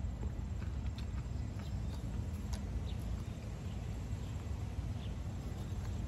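A steady low rumble of outdoor background noise, with a few faint short clicks scattered through it.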